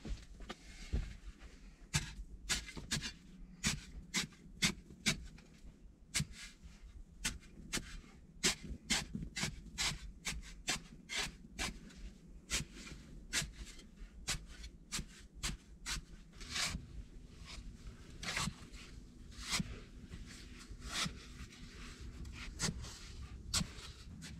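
Small short-handled shovel chopping and scraping into packed sandy soil, a long irregular run of short scrapes about one or two a second, as a hollow is dug out of the pit wall.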